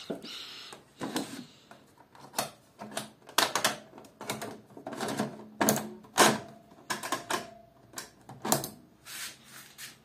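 A short rustle, then a run of irregular sharp plastic clicks and knocks from turning a control knob on a Beko front-loading washing machine's panel.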